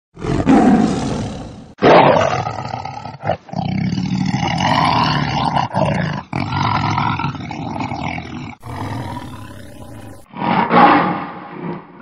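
Lion roaring: a run of long, loud roars one after another, broken by several abrupt cuts.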